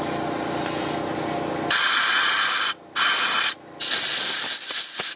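Compressed air blasted through the jets of an Edelbrock four-barrel carburetor to blow out water: three loud hissing blasts beginning about a second and a half in, the last one the longest. Before the blasts, a steady low hum.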